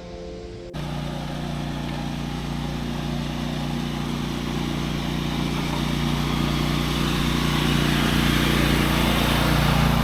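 A motor vehicle's engine running steadily with a rushing noise, starting abruptly just under a second in and slowly growing louder.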